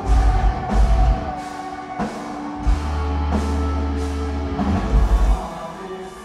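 Live metalcore band playing at full volume: bursts of rapid bass-drum hits under distorted guitars, with a held low note in the middle.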